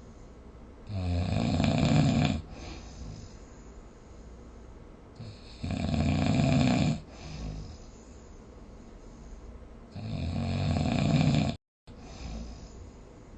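A person snoring: three long snores about four to five seconds apart, with quieter breathing between. The third snore cuts off suddenly in a short moment of silence.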